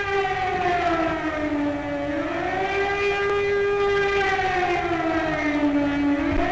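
Air-raid siren wailing: a held tone that slides down in pitch and back up twice, about four seconds apart.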